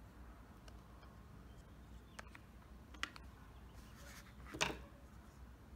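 Quiet handling noise on a table: a few faint clicks and taps from a hot glue gun and plastic bottle pieces being handled and set down, with one louder short knock or scrape about four and a half seconds in.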